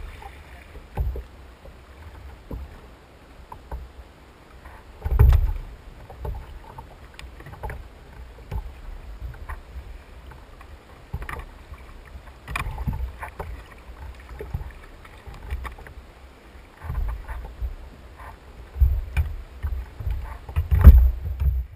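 Irregular knocks and low thumps of gear and hands against a Hobie fishing kayak's plastic hull as it drifts on open water, with the heaviest knocks about five seconds in and in a cluster near the end.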